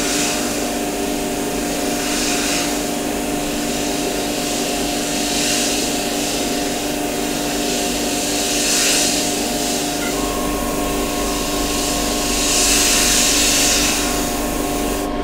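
Airbrush spraying paint in short passes, its hiss swelling and easing several times as the trigger is worked, over a steady motor hum.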